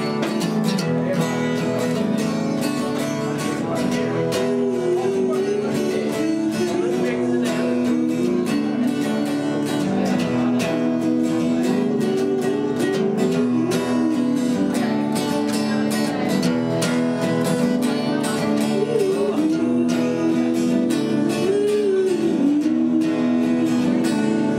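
Live acoustic guitar strummed steadily, with a wavering lead melody line gliding above it.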